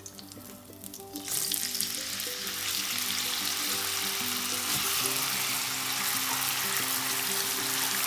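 Raw chicken strips dropped into hot sunflower oil in a pan, sizzling: the sizzle starts suddenly about a second in and settles into a steady frying hiss as more chicken goes in. Background music with sustained notes plays underneath.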